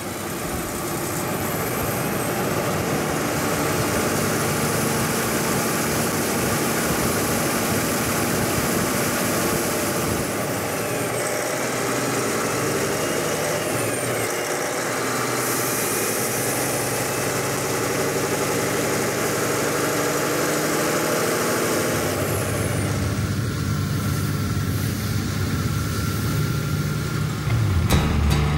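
Peterbilt 389 semi-truck with a Cummins diesel pulling a heavy oversize load: the engine runs steadily under load with tyre and road noise. About three quarters of the way in, a deeper engine rumble comes up and stays to the end.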